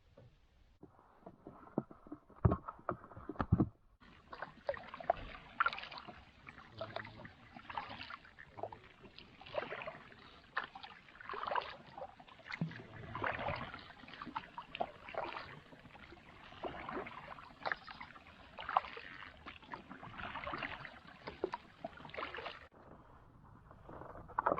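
Water splashing and sloshing around a kayak on the water, in irregular bursts every second or two, with two sharp knocks a few seconds in.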